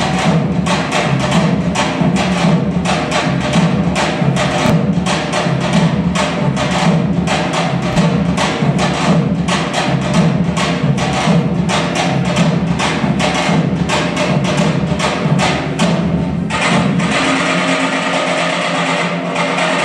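Albanian folk dance music driven by a fast, steady percussion beat of about four strokes a second. About three-quarters of the way through the beat stops and a steadier, plucked or strummed part carries on.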